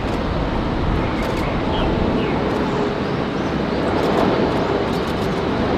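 Jet engines of an Airbus A330 airliner as it flares over the runway to land: a steady rumble with a faint hum running through it.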